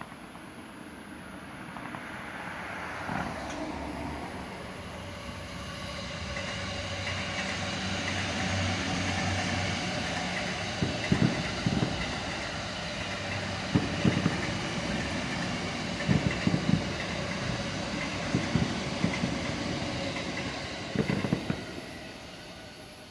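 A train passing, growing louder and then fading away, with groups of clicks from its wheels over the rail joints through the loudest part.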